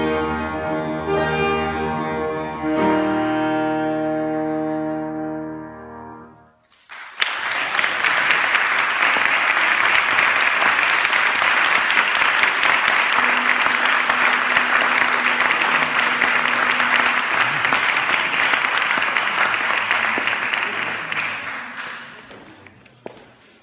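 Two saxophones with piano playing the last notes of a piece, held and dying away about six seconds in. After a brief hush, applause starts and runs for about fifteen seconds before tapering off.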